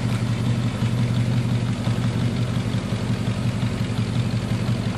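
The engine of a 1972 Chevrolet donk running steadily at low speed as the car creeps along, a deep even hum with no revving.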